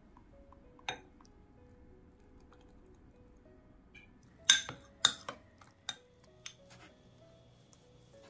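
Sharp clinks and knocks of dishes and kitchen utensils: a single one about a second in, then a cluster of several more, the loudest about four and a half and five seconds in, over soft background music.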